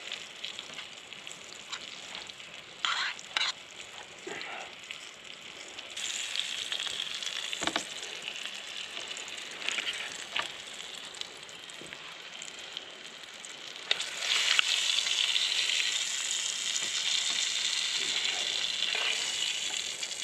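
Food frying in oil in a pan, with a steady sizzle and a few short clicks and knocks of a utensil. The sizzle gets louder about six seconds in and louder again about fourteen seconds in.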